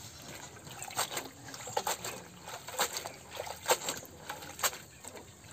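Hands swishing and squeezing leafy greens (saag) in a metal bucket of water: irregular splashes and sloshes, a few sharper than the rest.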